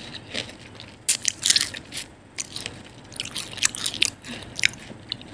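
A fork breaking into a crisp fried lumpia wrapper around a chocolate banana filling, giving a string of sharp, irregular crunches and crackles from about a second in.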